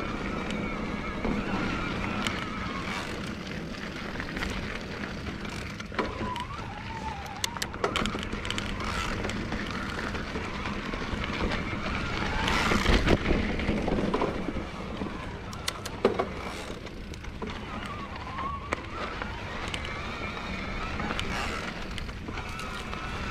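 Electric mountain bike climbing a dirt trail: the Bosch CX mid-drive motor whines, its pitch drifting up and down with pedalling, over tyre rumble and scattered clicks and knocks from the bike on rough ground. A louder, rougher stretch comes about two-thirds of the way through.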